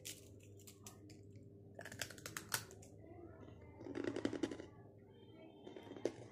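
Hard, crunchy chakli (fried spiral snack) being snapped apart by hand and bitten close to the microphone. A few crisp cracks come about two seconds in, a dense run of crunching around four seconds, and a sharp snap near the end.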